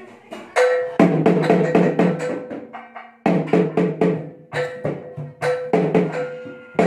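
Gendang drums played in a fast, interlocking rhythm, one beaten with a stick and one with the hand, over a steady held note from a small shawm. The drumming breaks off briefly about three seconds in, and the held note carries through the gap.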